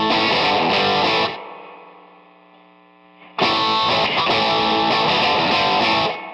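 Music: distorted electric guitar playing a riff that breaks off about a second in, the last chord ringing out and fading, then comes back in and breaks off again near the end.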